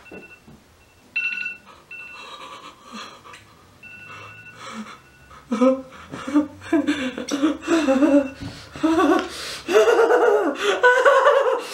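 An alarm clock beeping in short repeated two-tone bursts for the first couple of seconds, fainter after that. From about five seconds in, a person's voice wails and groans without words, drawn out and rising and falling in pitch, louder toward the end.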